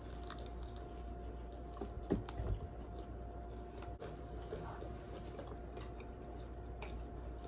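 Faint, soft eating noises of someone chewing food, with a few small clicks around two seconds in, over a steady faint hum.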